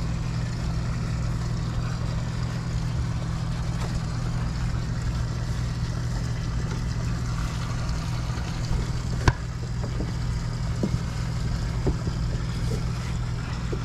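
Steady low hum of a 60-foot motor yacht's idling machinery, with a sharp knock about nine seconds in and a few lighter taps as dock lines are worked around a metal dock cleat.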